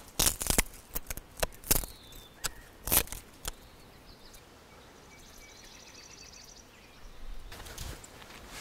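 Knife prying splinters of resinous ponderosa pine fatwood off a stump: a run of sharp cracks and snaps of splitting wood in the first three and a half seconds. Near the end, footsteps and rustling in grass.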